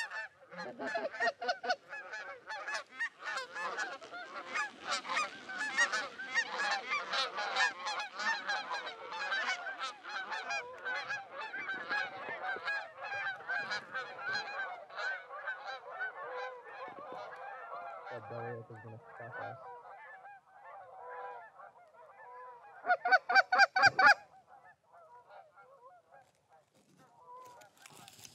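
A large flock of Canada geese honking overhead, many birds calling over one another, the chorus thinning out after about twenty seconds. Near the end comes a short, loud run of rapid honks close by.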